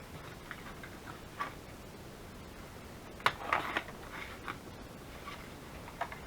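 Scissors cutting paper: scattered small snips and paper handling, with a louder run of several snips a little past halfway.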